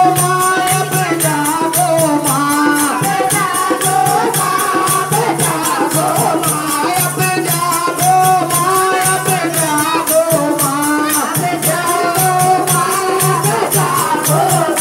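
Devotional group singing of a bhajan, led through a microphone, over a steady fast beat of hand claps and rattling percussion, with a low sustained tone under it.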